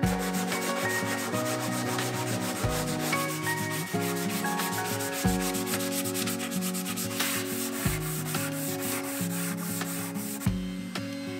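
Hand sanding a wooden chest panel with a sheet of sandpaper: rapid back-and-forth scratchy strokes, several a second, stopping shortly before the end. Background music with a slow bass line plays underneath.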